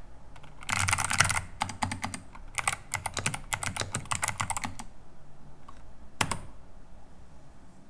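Typing on a 60% mechanical keyboard fitted with Kailh BOX Jade clicky switches and blank PBT keycaps: sharp clicky keystrokes, with a dense flurry about a second in, a run of steady key presses through the middle, and a single key press near the end.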